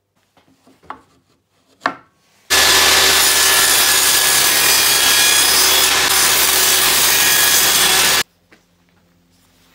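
Table saw running and cutting a small wooden block held in a homemade sled, loud and steady, starting suddenly about two and a half seconds in and stopping suddenly about eight seconds in. Before it, two light knocks as the wood is handled.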